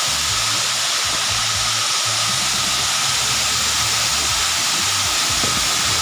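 A 25-metre waterfall pouring onto river rocks: a steady, unbroken rushing hiss, with a low uneven rumble underneath.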